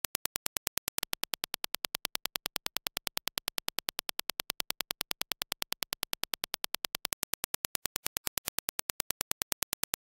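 A rapid, evenly spaced train of Dirac impulse test clicks, about seven a second, played for comparison: the ideal reference impulse, then the same impulse as reproduced by the Dyson Zone headphones, then the reference again near the end.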